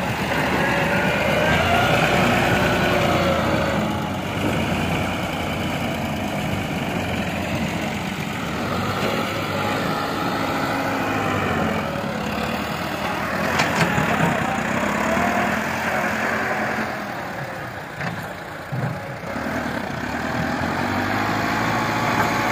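Farm tractor diesel engine running under load, its pitch rising and falling several times as the throttle changes.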